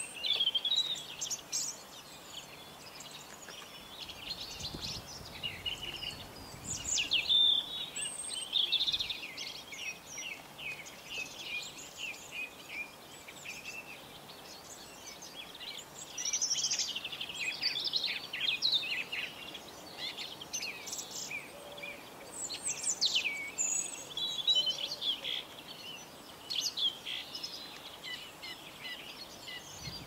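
Small songbirds singing and chirping outdoors, a near-continuous stream of short high chirps and song phrases that comes and goes in busier stretches.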